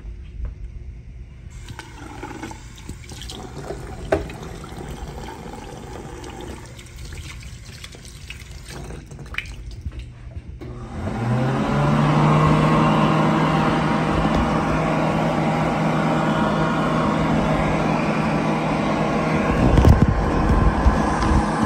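World Dryer Model A push-button hand dryer switching on about halfway through: its motor spins up to a steady hum under a loud rush of blown air, with a few thumps near the end. The uploader describes this unit as loud, sparking, running hot and blowing little air.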